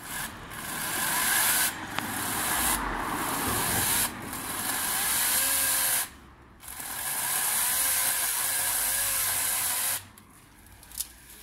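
Florabest 40-volt battery chainsaw running and cutting into green, wet branches overhead, its chain a little blunt. It runs in long bursts with a brief break about six seconds in, and stops about ten seconds in.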